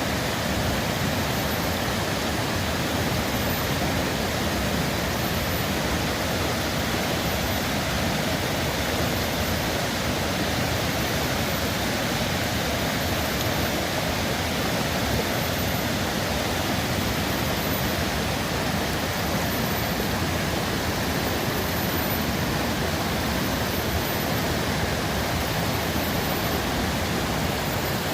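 Running water, an even, unbroken rushing.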